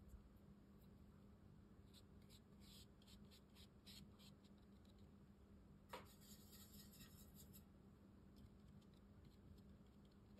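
Near silence with faint, soft scratching of a paintbrush working watercolour paint, and one light click about six seconds in.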